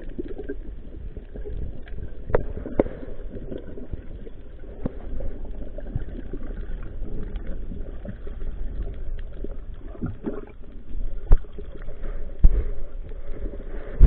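Underwater sound picked up through a camera housing: a steady low rumble of water with bubbling and scattered sharp clicks, and a few louder knocks near the end, as a freediver ascends.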